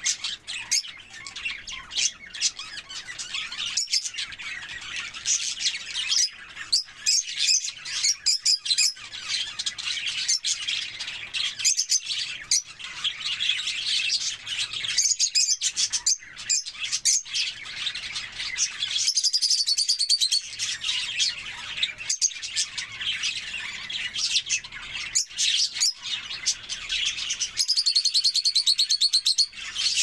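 A flock of small birds chirping and chattering continuously, many calls overlapping. A rapid trilling call stands out twice, about two-thirds in and again near the end.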